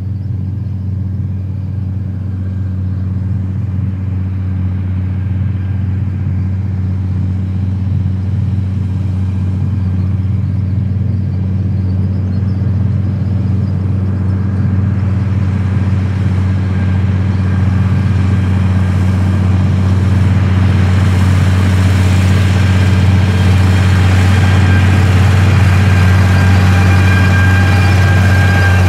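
Case IH Steiger 9330 articulated four-wheel-drive tractor's diesel engine running steadily under load while it pulls a hay merger, a deep even drone that grows gradually louder and brighter as the tractor comes closer.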